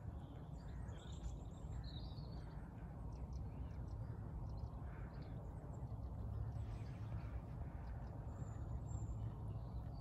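Alpacas munching and pulling hay at a close metal hay feeder, a faint crunching and rustling over a steady low rumble, with a few short bird calls, one about two seconds in and one near the end.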